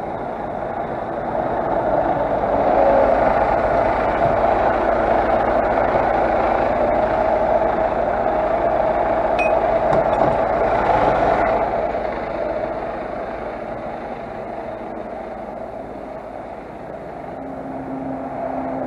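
A vehicle engine running, growing louder about two seconds in, holding for several seconds, then easing off.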